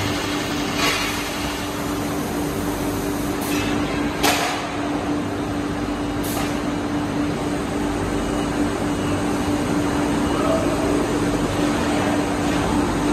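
Steady din of hot-forging plant machinery: a constant hum under a wash of noise, broken by a few sharp metallic clanks about four and six seconds in.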